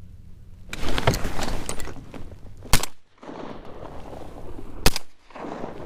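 Two shotgun shots about two seconds apart, the first near the middle and the second near the end.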